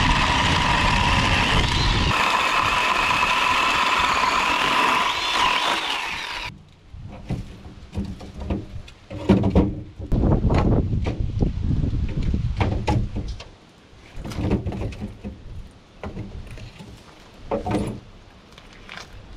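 A chainsaw runs steadily at high revs for the first six seconds or so, its pitch shifting slightly as it cuts firewood, then stops abruptly. After that come scattered knocks and thuds of firewood being handled.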